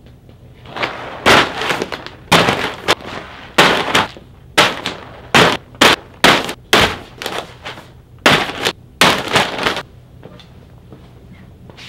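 Crinkly plastic and foil pet-food bags tossed one after another onto an upholstered armchair: about a dozen sharp rustling slaps in quick succession, stopping about ten seconds in.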